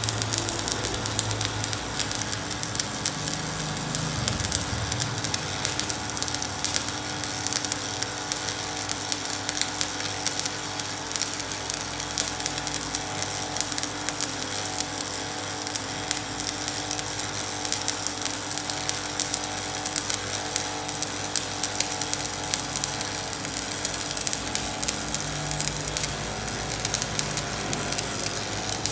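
Electric arc welding: the arc crackling and sizzling continuously, with a steady low hum underneath.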